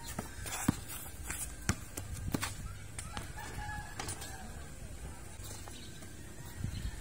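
A basketball dribbled on a concrete court: several sharp bounces in the first couple of seconds and another knock around four seconds in as a shot reaches the rim. A rooster crows in the background partway through.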